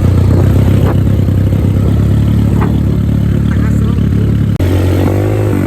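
A vehicle engine runs steadily under load with a strong low drone, as on a steep, rough off-road climb. About four and a half seconds in it cuts briefly and resumes.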